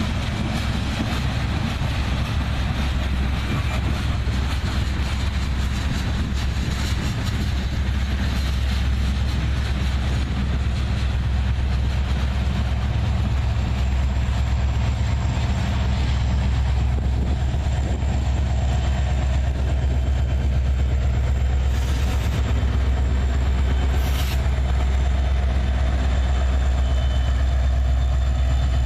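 Diesel freight train running past, with a steady low locomotive engine rumble under the rolling noise of wheels on the rails. Two short higher-pitched sounds come through about two-thirds of the way in.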